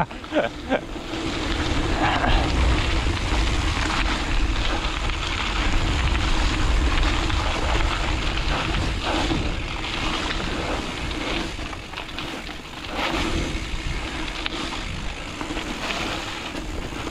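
Wind rushing over the microphone and tyres rumbling on a bumpy, loose dirt trail as a rigid mountain bike runs downhill, with scattered knocks and rattles from the bumps.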